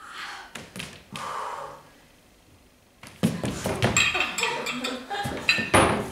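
A few breathy gasps, then from about halfway a busy clatter of knocks and clinks with short ringing pings as objects, among them a glass bottle, are handled on a wooden table.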